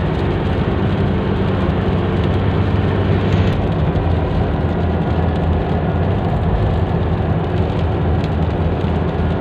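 Vehicle cabin noise while driving in heavy rain: a steady low engine and road drone with the hiss of rain on the vehicle.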